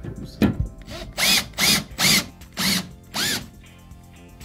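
Cordless drill/driver tightening the barn-door rail's mounting fasteners into the wall in five short trigger pulses, the motor winding up and back down with each. There is a sharp click about half a second in.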